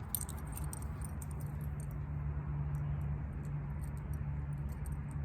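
Light metallic jingling and clinking from a dog's leash clasp and collar tags as a puppy runs about, densest in the first couple of seconds, over a steady low hum.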